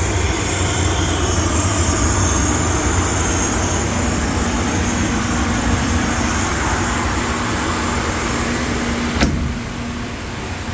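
Steady machine noise: a low hum under a broad hiss, with a faint steady tone coming in about four seconds in. A sharp click about nine seconds in, after which the hiss drops.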